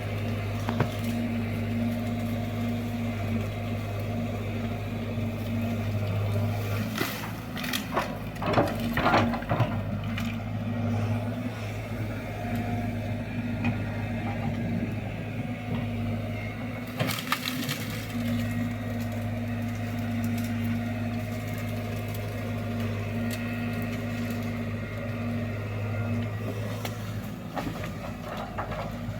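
Excavator diesel engine running steadily while the machine digs, with crunching and cracking from the bucket working the ground. The cracking comes in two spells: one about a quarter of the way in and a shorter one just past halfway.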